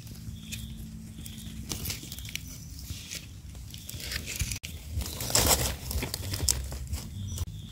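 Crackling and rustling of dry leaf litter and debris being disturbed by hand, with a louder burst of rustling about five and a half seconds in.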